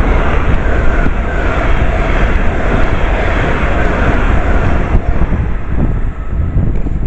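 A train passing through the station at speed: a loud, steady rush of noise that eases after about five seconds. Wind buffets the microphone throughout.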